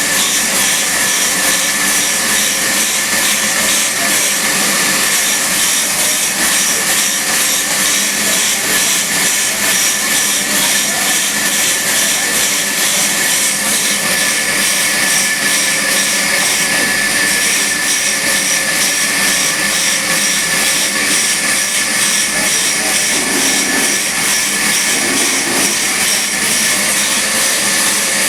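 Sawmill machinery running steadily: a loud, even whirring noise with a steady high whine through it.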